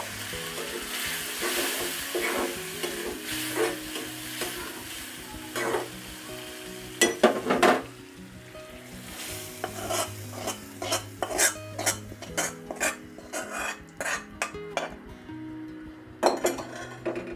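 Hot oil tempering of fried onion, garlic and dried red chillies sizzling in a wok as lentil dal is spooned in and stirred, the sizzle dying down over the first half. Then a metal spoon clinks and scrapes repeatedly against the pan as the dal is stirred.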